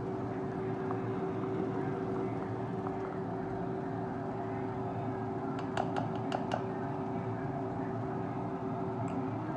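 Steady machine hum with one constant tone running under it. A little past halfway comes a quick run of four or five sharp clicks, and one more click near the end.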